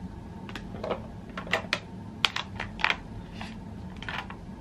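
Pink plastic lunchbox being opened and handled: a string of about ten irregular sharp plastic clicks and taps as the lid is worked free of the divided base.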